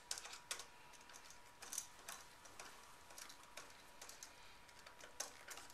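Faint, irregular small clicks of a screwdriver turning the terminal screw on a duplex electrical outlet, tightening a hooked wire under it.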